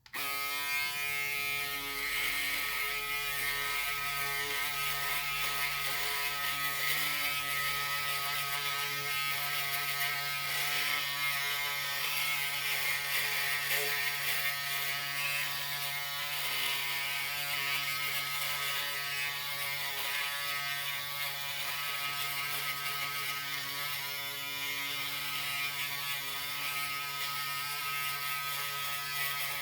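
Electric shaver running steadily, buzzing at one constant pitch while shaving, with a rasping cutting noise that swells and fades over the buzz.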